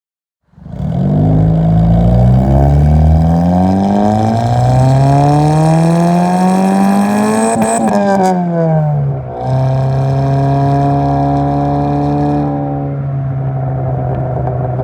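Exhaust note of a 2000 Honda Civic hatchback's four-cylinder engine through an eBay catback exhaust with home-welded baffles, heard close at the tailpipe. The revs climb steadily under acceleration for about seven seconds, drop away over a second or so, then hold steady at a constant pitch.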